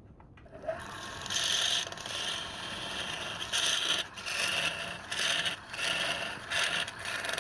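A hand tool scraping wood in repeated back-and-forth strokes, roughly one stroke every 0.7 seconds, starting about a second in.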